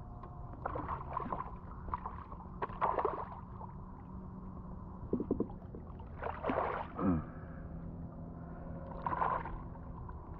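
Hooked snook thrashing and splashing at the water's surface beside the boat while it is grabbed by hand, in several separate bursts of splashing over a steady low hum.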